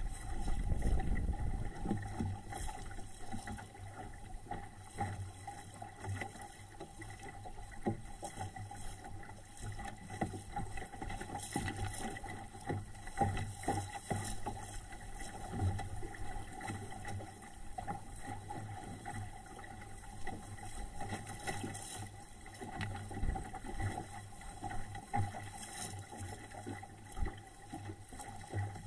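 Water rushing and splashing along the hull of a small SCAMP sailboat under way, with irregular slaps of chop against the boat.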